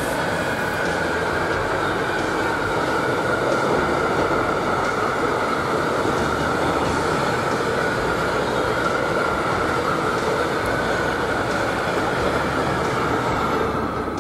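Freight train of tank wagons rolling past: a steady rumble of steel wheels on rail with a steady high whine over it, falling away as the last wagon passes near the end.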